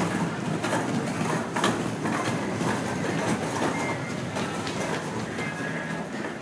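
Miniature resort train, a trackless road train built as a red steam locomotive, running close by on brick paving.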